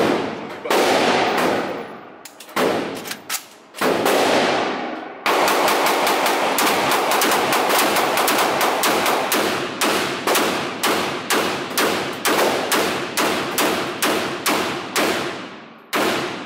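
Draco AK-pattern 7.62×39 pistol fired repeatedly at an indoor range. There are a few quick shots in the first five seconds, then a long, even string of shots at about two to three a second, each with a ringing echo off the range walls.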